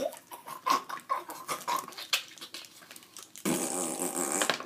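Scattered light clicks of plastic action figures being handled, then, near the end, about a second of a person's voice making a rough growling sound effect for the Clayface figure's attack.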